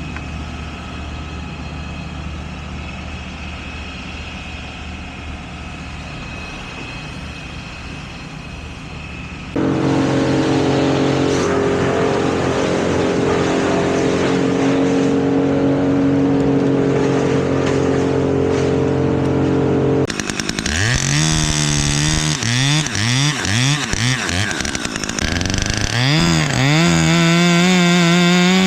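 Engine running steadily, stepping up louder about ten seconds in. Past the middle, a chainsaw is revved up and down several times, then held at full throttle near the end.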